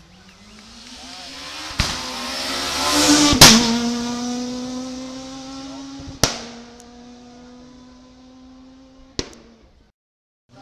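Rally car engine at high revs, rising as it approaches and loudest about three and a half seconds in, then holding a steady note as it fades away. Several sharp cracks cut through it, and the sound drops out abruptly near the end.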